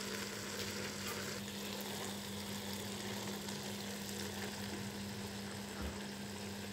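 Minced beef masala sizzling gently in a wok as it is stir-fried with a silicone spatula, its cooking liquid almost dried off. The sizzle stays steady, with a low hum underneath.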